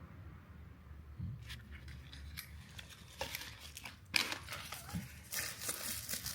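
Scattered clicks, light knocks and short scraping and rustling noises from hand work on the fan motor's bearing and parts, growing busier and louder in the second half.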